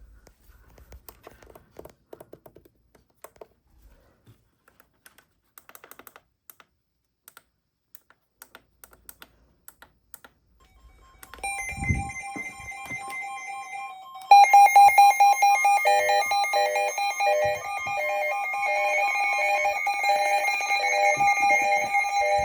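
Faint scattered clicks, then about eleven seconds in several NOAA weather radios start sounding their alert sirens together. A second, louder layer joins about three seconds later, giving overlapping steady and beeping alert tones.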